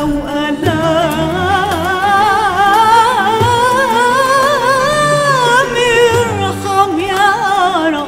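A woman soloist singing one long, ornamented Arabic vocal phrase with strong vibrato, the melody climbing to a high held note around the middle and sinking back near the end.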